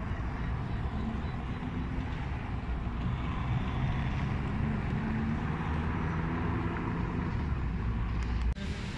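City street traffic: a steady low rumble of vehicles, with an engine hum strongest in the middle and wind on the microphone. The sound drops out briefly near the end.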